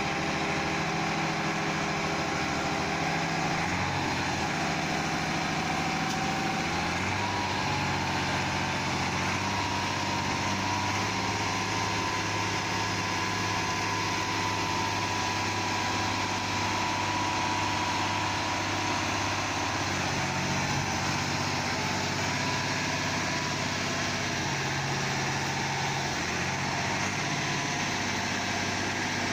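Deutz-Fahr Agroxtra 6.17 tractor engine running steadily at low revs, its note shifting slightly in pitch a few times, with a faint high whine for a while in the middle.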